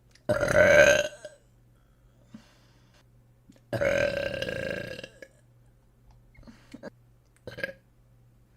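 A woman belching: a loud burp about half a second in, a longer burp of about a second and a half in the middle, and a short one near the end.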